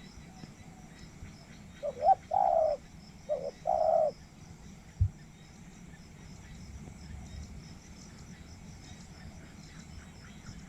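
A spotted dove cooing: one phrase of about four notes, two short and two longer, about two seconds in. A single dull knock follows a second later.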